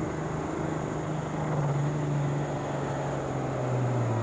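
Turbocharged diesel engine of a John Deere pulling tractor running hard under the load of a pulling sled. Its note holds steady, then falls in pitch near the end as the engine is pulled down.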